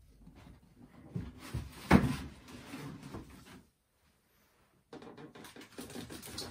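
Cardboard figure box being handled and opened: a few knocks, the loudest about two seconds in, with scraping and rustling of the packaging, then a short pause and more rustling near the end.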